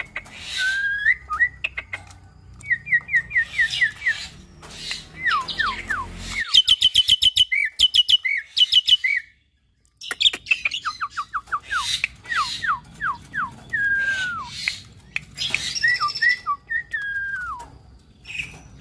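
Hybrid myna (Nias hill myna crossed with Asian pied starling) singing: fast runs of down-slurred whistles, rapid strings of repeated chirps and sharp clicks. There is a break of about a second some nine seconds in.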